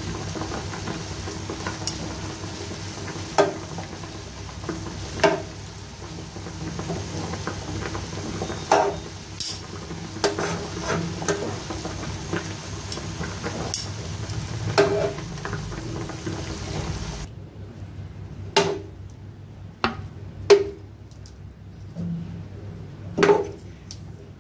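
Water boiling in a pan while metal tongs clack against the pan rim and lift out pieces of boiled meat, a dozen or so sharp clacks. The bubbling hiss drops away about two-thirds of the way through, leaving the clacks over a quieter background.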